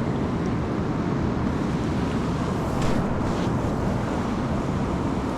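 Steady rushing of a fast river, with wind on the microphone.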